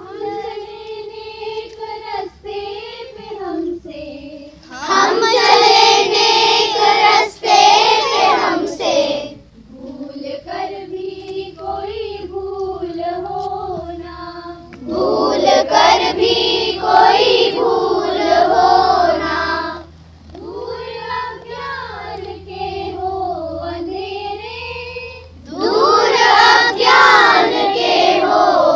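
A group of children singing together in unison, the phrases alternating between quieter stretches and louder, fuller ones about every five seconds.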